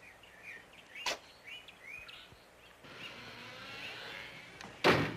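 Birds chirping in short calls, with a sharp knock about a second in and a much louder bang near the end.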